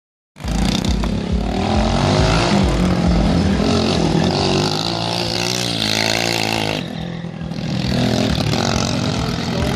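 Go-kart engine running and revving as the kart drives around, its pitch rising and falling with the throttle, with a brief dip about seven seconds in. A small car drives past close by near the end.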